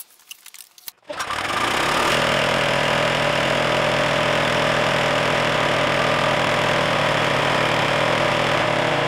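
Toro TimeMaster 30-inch lawn mower's 10 hp, 223 cc overhead-valve engine starting on a shot of starter fluid about a second in, then running steadily and loud. Starting on the spray is consistent with the owner's diagnosis: the ignition gives spark and the fault is on the fuel side.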